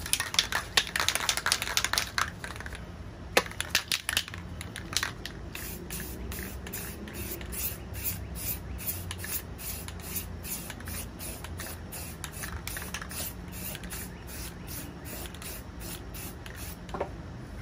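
Rapid, regular swishing strokes, about two to three a second, of a hand wiping back and forth over a freshly sanded bare-steel tractor wheel rim, preparing the metal for primer.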